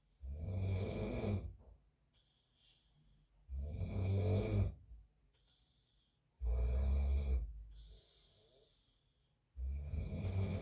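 A man snoring in his sleep: four low snores, about one every three seconds, each lasting a little over a second, with quiet between them.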